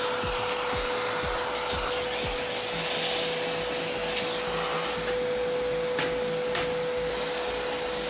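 Vacuum cleaner running steadily with a constant motor whine, sucking dust out of a computer case.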